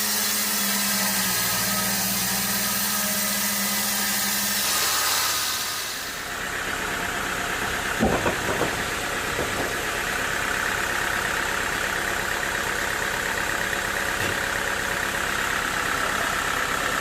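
Sawmill machinery running steadily. Its sound changes about six seconds in, and there are a few sharp knocks about eight seconds in.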